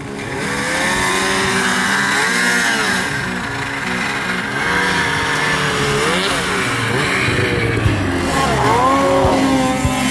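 Snowmobile engine revving up and down as the sled is ridden through deep powder snow, its pitch rising and falling several times.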